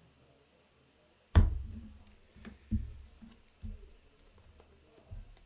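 A sharp knock on a tabletop about a second in, then several softer knocks and taps, as cards and game pieces are handled and set down on the table.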